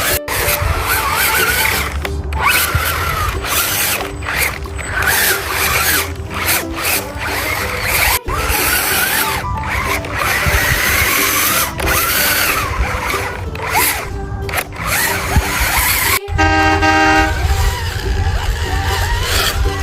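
Background music mixed with machine and vehicle sound effects, broken by abrupt cuts, with a horn blast about sixteen seconds in.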